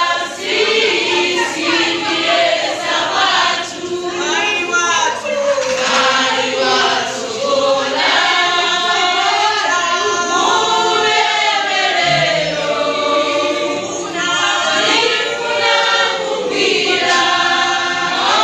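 A choir singing together, many voices gliding up and down in long sung lines.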